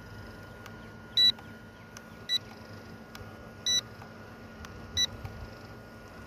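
Four electronic beeps from a small toy quadcopter's remote-control setup while it is readied for flight on the ground with its propellers still. They come in a long-short-long-short pattern about a second apart.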